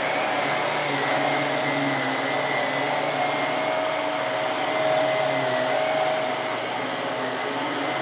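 Hoover bagless upright vacuum cleaner running steadily on shag carpet, its motor whine holding a constant pitch while the brush roll spins. The level swells slightly about five seconds in and eases off a little after six seconds as the cleaner is pushed and swivelled.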